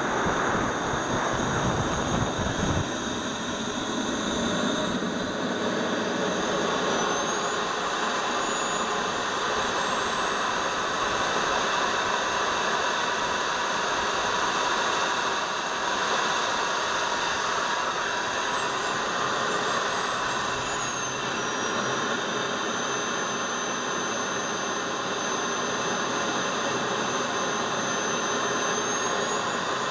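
Radio-controlled model jet's engine running with a steady rushing hiss and a thin high whine that rises in pitch about five to eight seconds in, wavers, then drops a little around twenty seconds in.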